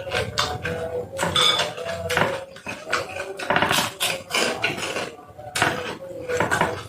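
Spoon clinking and scraping against a bowl of bakso soup while eating, in a run of short, irregular knocks.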